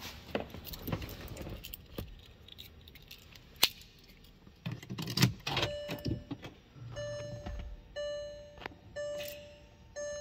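Keys jangling and clicking at the Porsche Cayenne's ignition, then from about halfway the seat-belt warning chime, a ringing tone repeating about once a second.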